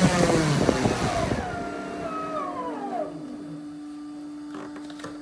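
G60 electric motor and 15x10 propeller spooling down after a full-throttle bench run, the whine falling in pitch and fading over about three seconds as the throttle is cut. A steady hum remains, with two faint clicks near the end.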